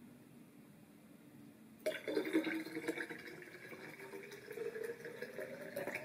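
Water poured from a glass measuring cup into a glass carafe, starting suddenly about two seconds in; the pouring splashes steadily and its pitch rises as the carafe fills.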